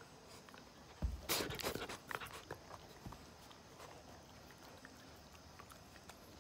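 A long-haired pet dog climbing up and nuzzling a sleeping person's face: a low thump about a second in, then about a second of loud rustling close to the microphone, followed by scattered faint clicks.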